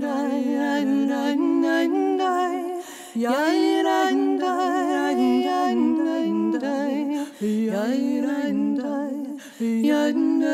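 A solo voice singing a wordless melody with vibrato, unaccompanied, in phrases broken by short breaths.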